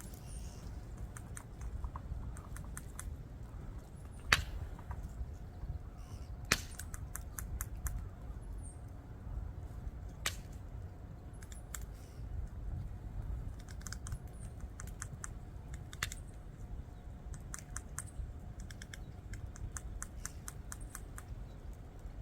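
Wood campfire crackling: irregular snaps and clicks in small clusters, with two louder pops a few seconds in. Faint bird chirps are heard now and then.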